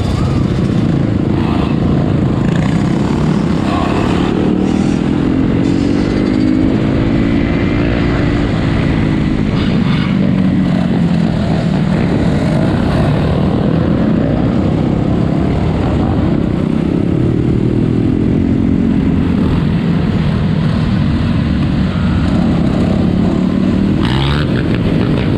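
Several four-wheeler (ATV) engines running and revving, their pitch rising and falling over a few seconds at a time as they ride past, with a few brief knocks.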